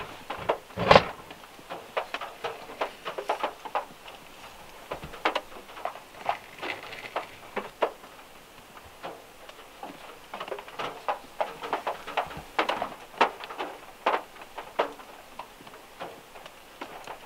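Close-up food-handling sounds: a plastic tub set down on a wooden cutting board with a knock about a second in, then irregular soft taps, clicks and scrapes as a wooden spoon spreads caramel over a tapioca crepe and banana slices are laid on it.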